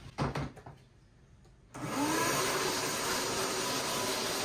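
Wet/dry shop vacuum switched on about two seconds in: its motor whines up to speed and then runs steadily. A few knocks from handling the vacuum and its hose come just before it starts.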